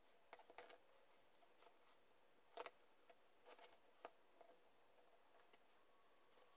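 Faint, scattered clicks and taps of a small wooden toy tractor and its parts being handled and turned over in the hands.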